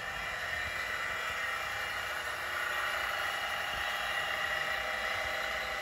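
Milling setup running, its motor driving a geared rotary table: a steady machine whine of several tones at once, growing a little louder about halfway through.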